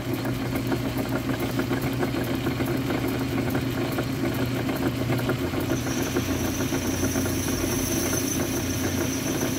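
Metal lathe starting up and running steadily, the chuck spinning while the tool takes a light turning cut on a metal cap, curling off chips. A thin high whine joins a little past halfway through.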